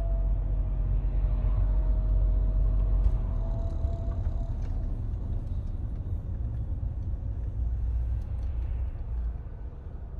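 A steady low rumble, with a faint held tone over it for the first four seconds or so.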